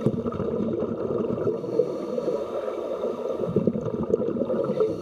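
Scuba divers' exhaled air bubbling out of their regulators, heard underwater: a steady bubbling and gurgling.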